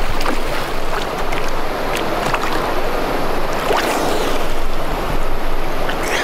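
Water splashing and churning close to the microphone, with scattered sharper splashes, as a person moves through the river.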